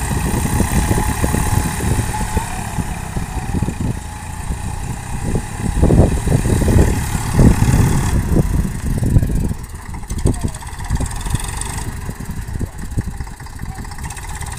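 Diesel tractor engine running steadily as the tractor pulls a rotary tiller through a flooded paddy field, churning the mud. There is a continuous low rumble that swells loudest about halfway through.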